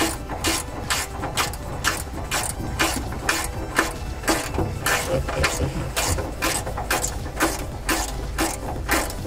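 Ratchet wrench clicking in a steady rhythm, about two clicks a second, as it is swung back and forth to undo the panel bolts.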